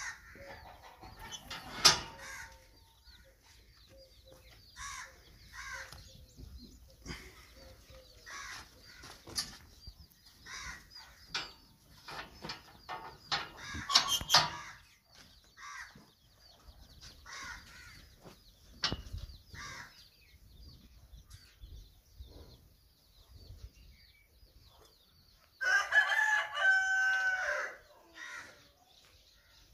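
Chickens clucking on and off, with a few sharp knocks, and a rooster crowing once, loudly, for about two seconds near the end.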